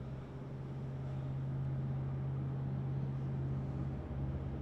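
Steady low machine hum on one unchanging pitch, with faint room noise around it.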